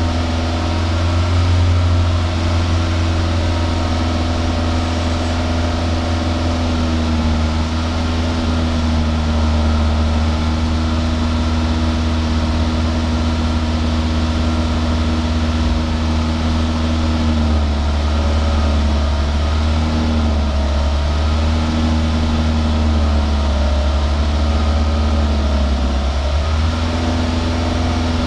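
Toyota 2SZ-FE 1.3-litre four-cylinder engine idling steadily, heard at the exhaust tailpipe just after a Wako's RECS intake-cleaner treatment, while the exhaust smokes white. Its note wavers and dips slightly a few times in the second half.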